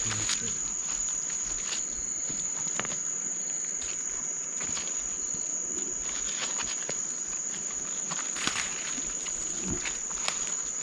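Night insects trilling steadily at one high pitch, with occasional short clicks and rustles, as of footsteps in leaf litter.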